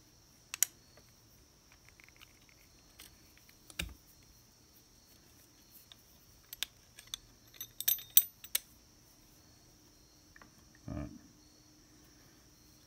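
Black steel parts of a four-way panel clamp clicking and clacking as they are handled and fitted together: scattered sharp clicks, a quick cluster of them about eight seconds in, and a duller knock near the end.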